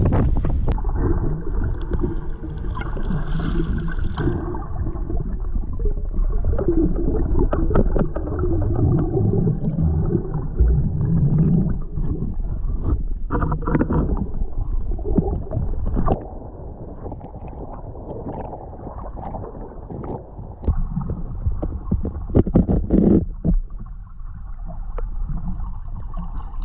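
Muffled underwater sound of a camera held below the lagoon surface: water sloshing and gurgling, with scattered sharp clicks. It turns quieter about halfway through.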